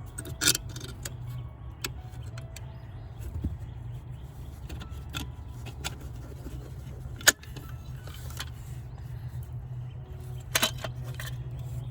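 Scattered metallic clinks and clicks of hand tools on the brake pedal assembly's nuts and bolts, over a steady low hum.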